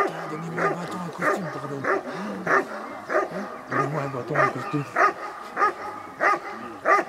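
German Shepherd barking steadily and rhythmically, about one and a half barks a second, while guarding a helper standing in front of it in protection work.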